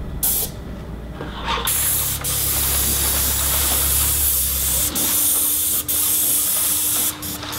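Paint spray gun on an extension pole spraying a top coat onto a metal rain gutter: a short burst of spray hiss, then the trigger held for a long, steady hiss of about five seconds, then short on-off bursts near the end. A low hum runs under the first part of the long spray.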